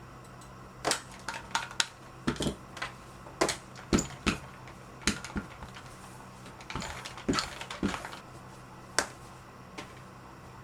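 Irregular sharp clicks and knocks of small hard objects being handled and set down, a few with a heavier thud, over a steady low hum.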